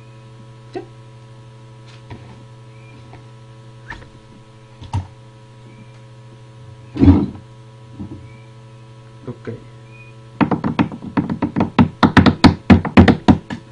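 Steady electrical hum with a few light taps and a single thud about seven seconds in. Near the end comes a quick run of sharp hand claps, about six a second, lasting some three seconds.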